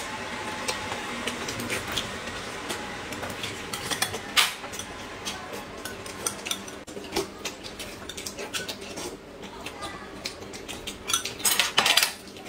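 Chopsticks clicking and tapping against plates and bowls during a meal of boiled dumplings, with the sounds of two people eating: many small sharp clicks, and a louder cluster of clatter near the end.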